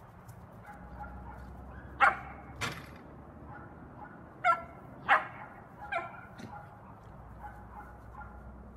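Dog barking: five sharp barks, a pair about two seconds in and three more between about four and a half and six seconds in.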